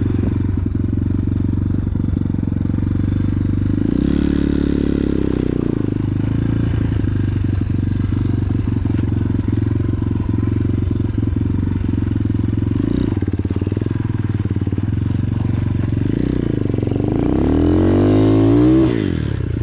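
X-Pro Titan 250cc dirt bike's single-cylinder four-stroke engine running on a trail ride, mostly at a steady low pace. The revs rise briefly about four seconds in, and near the end the engine is revved up and down several times.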